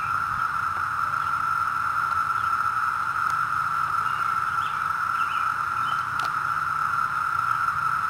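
Massed chorus of 17-year periodical cicadas of the northern Illinois brood (Brood XIII) calling from the trees: a steady, unbroken, shrill high drone at one pitch.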